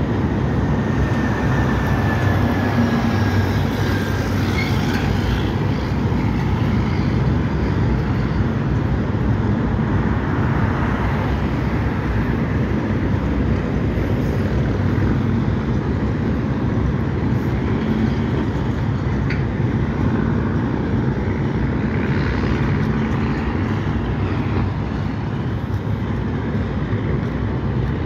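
CSX freight train's tank cars and boxcars rolling across a steel girder railway bridge: a steady rumble and clatter of wheels on the rails, with a faint high wheel squeal in the first few seconds.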